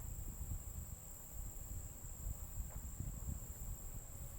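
Insects, likely crickets, trilling steadily in one constant high-pitched tone, over a low rumble.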